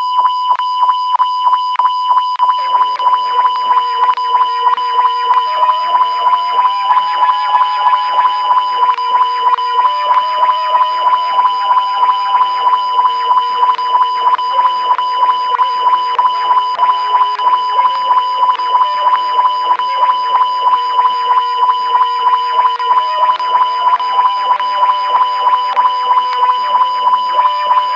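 Faulty radio broadcast signal: a loud, steady, beep-like test tone pulses evenly about three times a second, while faint music bleeds through underneath.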